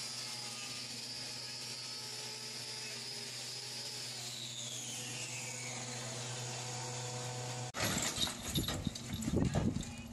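Hoof-trimming disc grinder running over a steady low hum, its high whine falling in pitch about halfway through as it spins down. After about eight seconds it gives way to loud irregular knocks and clatter.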